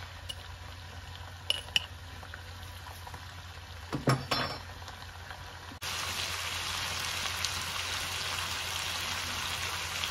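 Spotted babylon snails frying in garlic butter and sugar in a nonstick pan, with a steady sizzle. A few sharp clinks and knocks of a spoon against the pan come in the first half, and from about six seconds in the sizzle is louder and steady.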